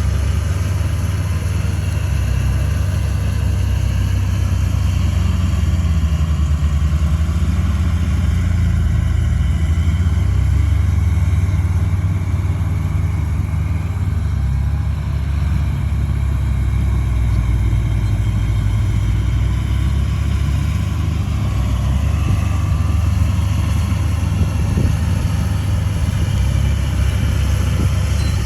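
Komatsu D31A bulldozer's diesel engine running steadily, a loud, even low rumble.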